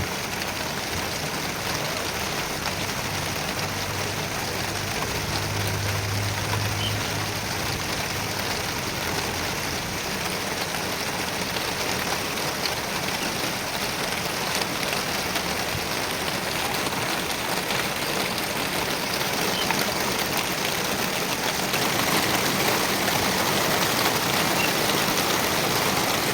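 Heavy rain pouring down, a steady hiss, with a faint low hum for a couple of seconds around six seconds in.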